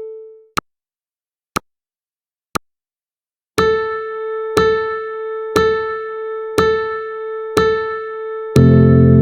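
Countdown timer sound effects: a clock-like tick once a second three times, then a piano-like beep once a second for five counts, then a louder, lower sustained alarm tone near the end that marks the timer reaching zero.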